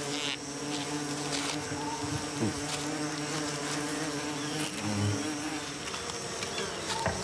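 Several orchid bees buzzing around a scent bait, a steady wingbeat hum with a dip in pitch about two and a half seconds in.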